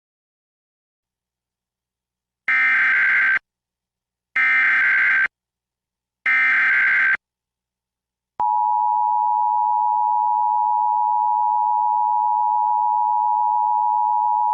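Emergency Alert System test tones: three one-second bursts of SAME digital header data, then about eight seconds in the steady two-tone EAS attention signal (853 and 960 Hz together) starts and holds.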